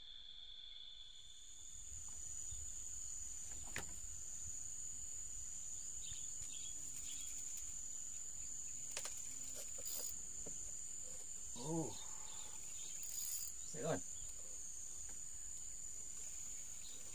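Steady, high-pitched insect chorus in the riverside vegetation. A few faint knocks and two short, quiet voice sounds come in the second half.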